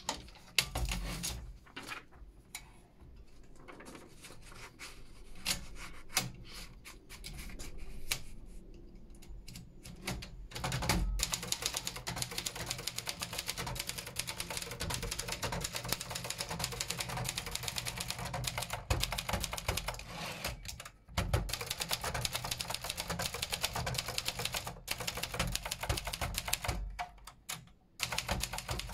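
Brother Deluxe 800T portable manual typewriter from 1975, being typed on. First come scattered clicks and knocks. Then, from about eleven seconds in, rapid continuous keystrokes with the typebars striking the paper, broken by a short pause in the middle and easing off near the end.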